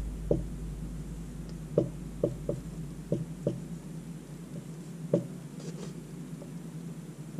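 Seven soft, irregular taps scattered over several seconds, over a steady low hum.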